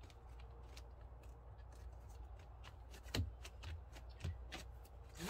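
Hands pressing and smoothing layered textured vinyl pieces stuck together with double-sided tape: faint rustling and crinkling with scattered small clicks, a couple of louder taps about three and four seconds in.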